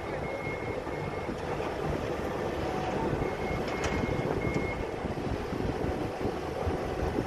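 A heavy vehicle or machine running with a steady rumble, while a high-pitched warning beeper sounds in two short runs of beeps: one at the start and one about halfway through.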